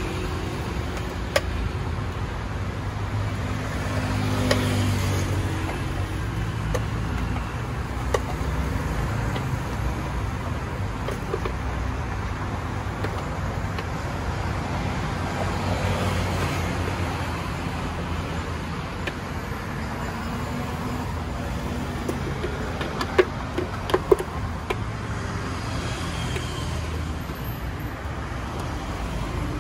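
Road traffic noise, a steady low rumble of passing cars that swells gently a few times. Over it come a few sharp clicks and knocks as the blender jar and spoon are handled while the smoothie is poured out.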